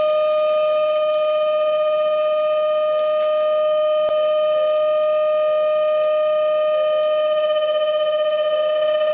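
Lathe boring bar chattering in the cut: a loud, steady high-pitched squeal with a stack of overtones, which starts to pulse near the end. The squeal is the sign of the bar vibrating against the workpiece.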